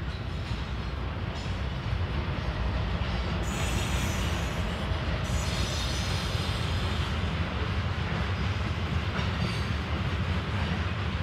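A train passing at close range: a steady low rumble of rolling wheels that builds slightly. A brief high-pitched noise comes over it about three and a half seconds in.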